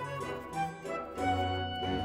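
Instrumental background music, with sustained notes that change every fraction of a second.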